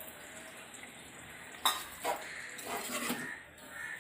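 Steel spoon stirring thick gravy in a metal cooking pot, with one sharp clink of the spoon against the pot about one and a half seconds in, followed by a few softer knocks and scrapes.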